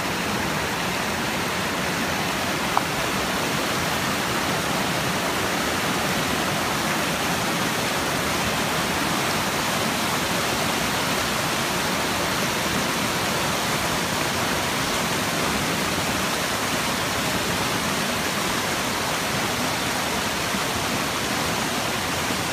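Fast creek water rushing over rocks in whitewater rapids, a loud steady rush. A brief click about three seconds in.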